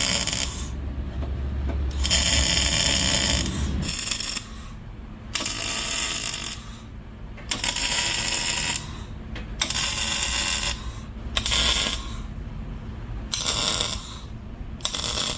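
Repeated rasping, scraping strokes, each about a second long, coming irregularly every one to two seconds, with a low rumble under the first few.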